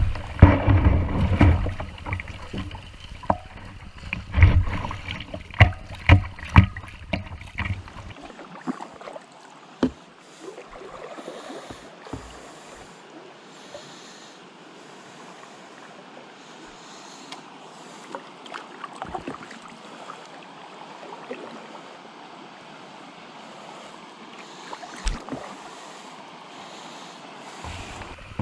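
Paddle strokes and shallow river water splashing against a Jackson Mega Rocker kayak and the deck camera, loud and choppy for about eight seconds; it then drops to a quiet run of flat water with a faint hiss and an occasional paddle splash, and the rush of rough water returns right at the end.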